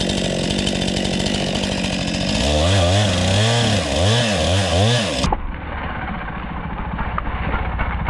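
Chainsaw cutting into a fallen trunk under tension. It runs at a steady speed, then from about two and a half seconds in the revs rise and fall over and over as the operator makes short, small cuts to ease the tension. A little past five seconds in, the sound suddenly becomes duller and lower.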